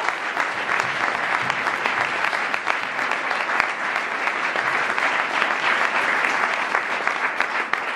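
Audience applauding, a steady dense patter of clapping.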